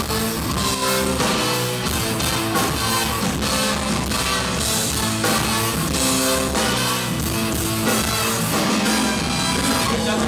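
Live rock band playing with electric guitar, drum kit and a brass section of trumpet and trombone.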